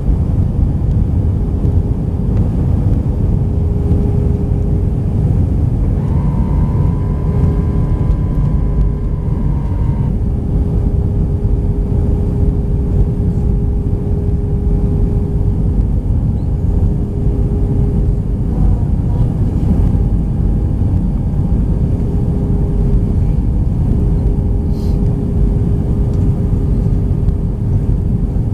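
Cabin noise of an Airbus A319-131 on approach, heard from a seat over the wing: a steady loud rumble of airflow with a steady hum from its IAE V2500 engines. About six seconds in, a higher whine joins for roughly four seconds and then stops.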